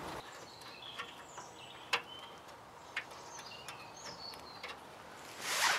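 Sharp clicks and taps of a hand spanner worked on a nut of a ride-on mower's cutting deck, a few of them about a second apart. Small birds chirp faintly in the background, and a short rustling scrape comes near the end.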